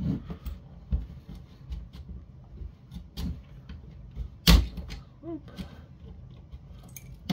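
The snap-together plastic case of a Linksys WRT310N router being pried open with a screwdriver: scattered clicks and creaks of plastic, with one loud crack about four and a half seconds in.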